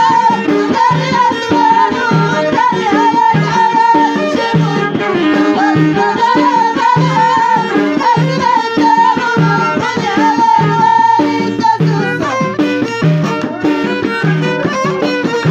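Moroccan Middle Atlas folk music played live: an ornamented melody line over a steady hand-drum beat, the melody thinning out about three-quarters of the way through.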